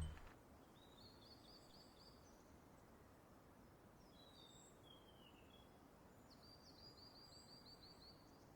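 Faint high bird calls over quiet background hiss: a quick run of repeated notes about a second in, a short falling call around the middle, and a longer run of about eight rapid repeated notes near the end.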